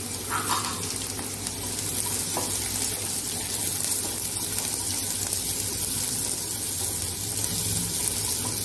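Sliced onions sizzling steadily in hot oil in a nonstick kadai while being stirred with a wooden spatula.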